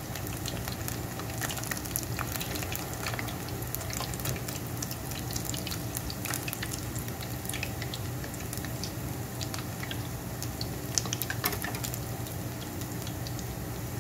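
Fish balls deep-frying in a pan of hot oil: a steady sizzle dotted with many small pops and crackles, with a couple of sharper pops late on.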